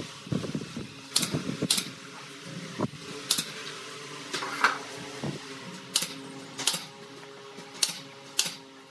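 Pneumatic nail gun firing into pallet wood: about eight sharp shots at irregular intervals, a second or so apart.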